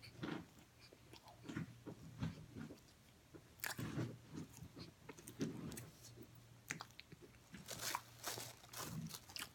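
Close-up chewing and biting of cornstarch chunks: irregular, crisp crunches in the mouth, with a louder run of crunches near the end.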